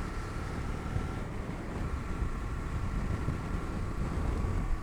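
Bajaj Dominar 250's single-cylinder engine running steadily at cruising speed, heard from the pillion seat, with wind rushing over the microphone.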